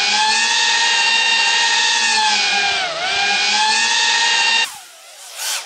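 Racing quadcopter on four-blade DAL Q5040 props spun by Emax RS2205 brushless motors, whining loudly as it flies close by. The pitch dips briefly about three seconds in and comes back up. The whine cuts off abruptly about four and a half seconds in, leaving much quieter sound.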